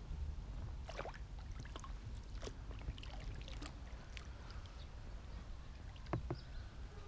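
Quiet pond-side ambience: light water lapping and a few small sharp ticks and knocks, over a steady low rumble.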